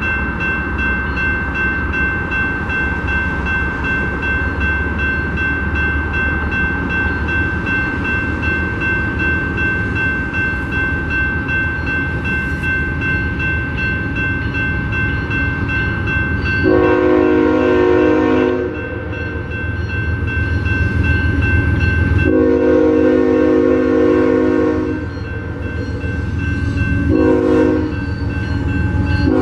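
Railroad crossing bell ringing steadily over the low rumble of an approaching BNSF freight train's diesel locomotives. From about halfway through, the lead locomotive's horn sounds the grade-crossing warning: two long blasts, a short one, and the start of a final long one at the very end.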